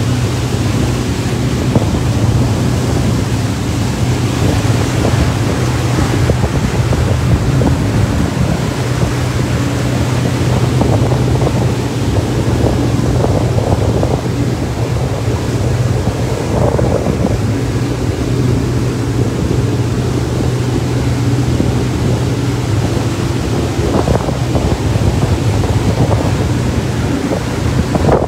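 Wind buffeting the microphone over the rush of a boat's churning wake and choppy water, with the boat's engine as a steady low drone underneath.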